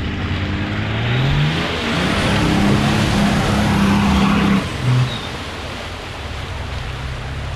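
An off-road 4x4 SUV's engine revving hard through deep mud: the revs climb about a second in and are held high for about three seconds, with a rushing of spinning tyres and flung mud over the engine. Near five seconds the throttle drops, blips once, and the engine runs on lower as the vehicle pulls away.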